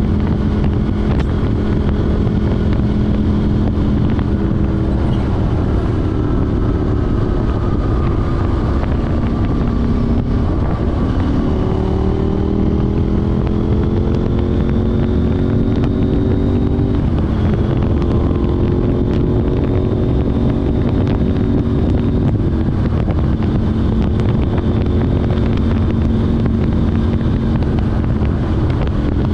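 KTM 790 Duke's parallel-twin engine running through an Arrow Race-Tech exhaust with de-cat pipe while riding. It holds a steady pitch at first. About eleven seconds in the revs climb for several seconds, drop, and climb again.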